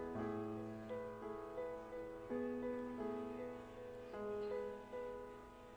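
Soft background music with piano-like notes held and changing about once a second.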